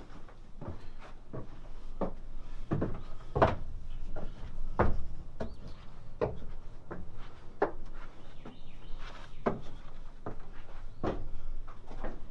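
Footsteps on wooden floorboards: uneven hollow knocks, about one or two a second, with two heavier steps about a third and two fifths of the way through.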